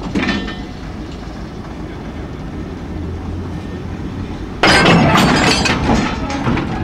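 Railway vehicles being shunted together for coupling: a low rumble as they close slowly, then, about four and a half seconds in, a sudden loud metallic clanking as buffers and couplings meet and the vehicles bump together.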